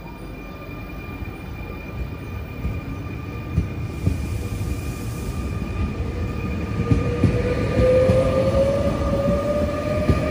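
Double-deck electric commuter train rolling slowly past, its wheels knocking over rail joints several times. From about six seconds in, a motor whine rises steadily in pitch as the train picks up speed.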